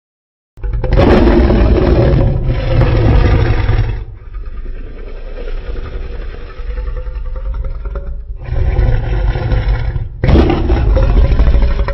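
Loud Godzilla monster sound effects: a deep, rumbling, roar-like sound with a droning tone through it. It sets in abruptly after a brief silence and cuts sharply from one clip to the next about four, eight and ten seconds in.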